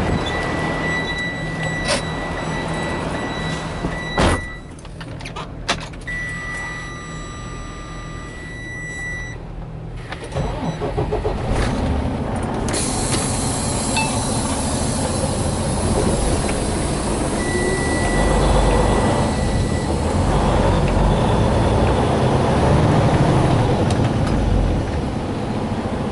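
Inside a diesel semi-truck's cab: its engine running, with a steady electronic warning beep from the dash sounding in the first ten seconds and again later. A sharp knock comes about four seconds in, like the cab door shutting. About halfway through a hiss of air starts and the engine rumble grows as the truck pulls away.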